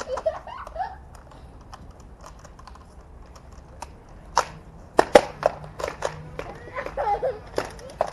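A string of sharp snaps from Nerf Rival blasters being fired and foam balls striking, scattered at first and coming thick and fast in the second half, with brief voices.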